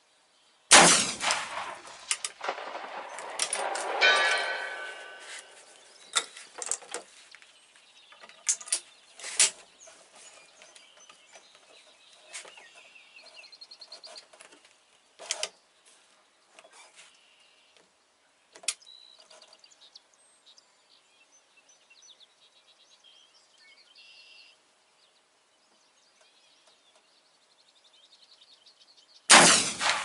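A .45-70 black-powder rifle fires one shot about a second in, followed by a second loud, ringing burst about three seconds later. Scattered clicks and knocks follow, and the next shot goes off just before the end.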